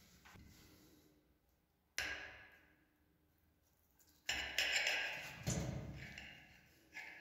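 Metal fork cutting through a soft cutlet in sauce on a plate: a sharp tap of the fork on the plate about two seconds in, then from about four seconds in a longer stretch of the fork pressing and scraping down through the meat against the plate.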